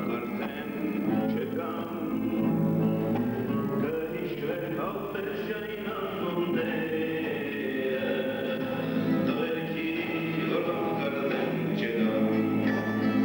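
Live acoustic music: several acoustic guitars playing together under a man's singing voice.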